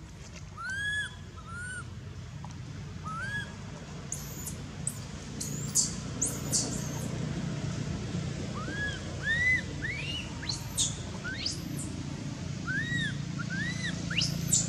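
Baby long-tailed macaque crying: short, high, squeaky arched cries, a few at first and then coming thick and fast from about eight seconds in, with shriller squeals mixed among them.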